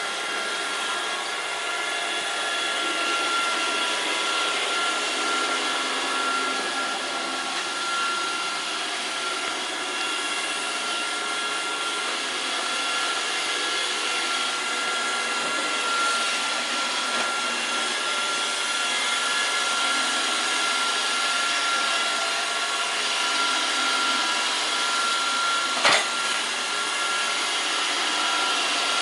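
Roomba robot vacuum running, a steady motor noise with a thin, steady high whine. Near the end there is a single sharp knock.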